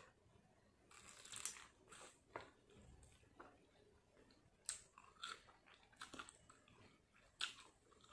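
Biting and chewing a piece of homemade crunchy roast chicken close to the microphone: short, irregular crunches and clicks of eating.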